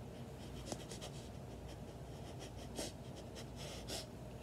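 A few faint, short scratchy rustles scattered over a low steady hum.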